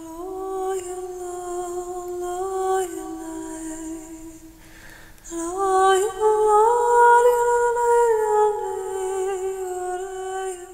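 A slow wordless melody hummed in long held notes, in two phrases; the second, starting about five seconds in, is louder and climbs higher before settling back down.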